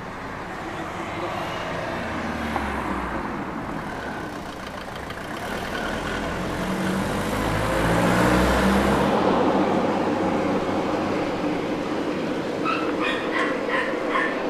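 A car drives past on the street, its engine and tyre noise swelling to a peak just past halfway and then fading. Near the end a dog starts barking, several short barks in quick succession.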